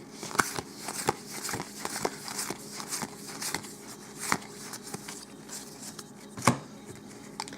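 Magic: The Gathering booster pack and cards being handled: irregular crinkles and clicks of the foil wrapper and cards, with two sharper snaps about half a second in and near the end. A steady low hum runs underneath.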